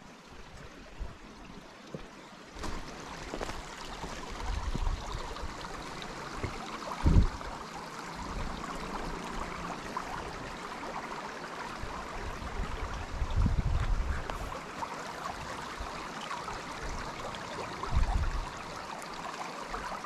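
Water running in a stream: a steady rushing hiss that grows louder about three seconds in. Occasional low thumps and rumbles on the microphone break through it, the loudest about seven seconds in.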